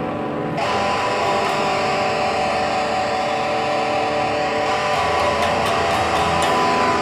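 Electric guitar playing through a homemade amplifier and a pair of tower speakers, a continuous run of sustained notes that picks up about half a second in.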